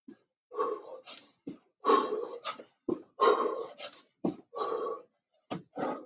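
A man breathing hard and puffing in short, forceful bursts while doing jump-turn 'snowboarder' squats, with the short thuds of his feet landing on the floor every second or so.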